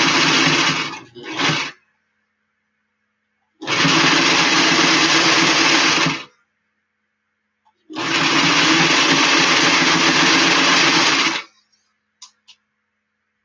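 Electric domestic sewing machine stitching in short runs: a brief blip, then two bursts of about two and a half and three and a half seconds, stopping dead in between. This is a curved seam being sewn freehand in short straight stretches. A couple of light clicks come near the end.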